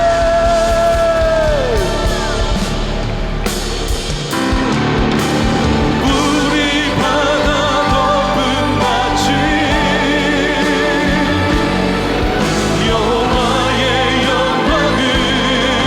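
Live worship band (keys, electric guitar, bass and drums) playing with several singers. A held sung note ends about two seconds in, and after a short dip around four seconds the full band and voices come back in.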